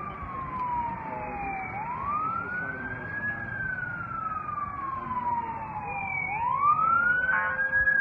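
Fire truck siren in a slow wail, each cycle rising quickly and falling slowly, repeating about every four to five seconds and growing louder near the end as the truck approaches.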